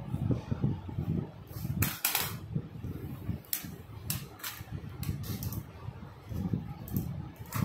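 A round metal sieve spinning on its rim on a hard tile floor, a rattling, rolling rumble as it whirls and wobbles down, with sharp metallic clicks as it is flicked, knocked or lands.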